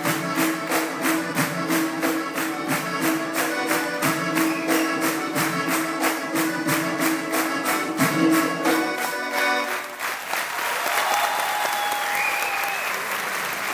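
Lively Caucasian folk dance music with a fast, even beat of about four strikes a second, ending about ten seconds in. The audience then applauds.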